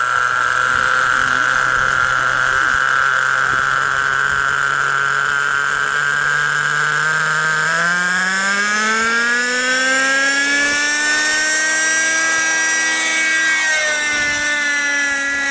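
Small nitro engine of a G-Smart 18-size RC helicopter running at a steady idle, then revving up about halfway through, its pitch rising over a few seconds and holding high as the rotor spools up for lift-off.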